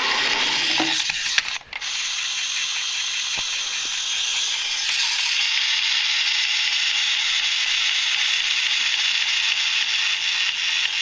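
Pullback motor of a small plastic Thomas the Tank Engine pullback racer whirring steadily as its wheels spin, a high, hissing gear whine with a brief break about a second and a half in.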